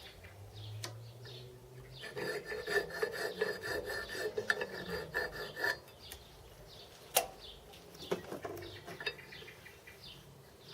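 A file rasping back and forth on a metal part for a few seconds, taking off a burr that stopped it fitting, then a single sharp knock.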